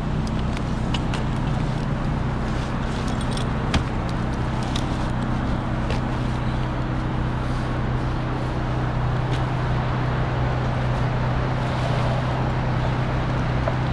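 Steady low machine hum over outdoor city traffic noise, with scattered light metallic clicks and clinks of rope-access gear in the first few seconds.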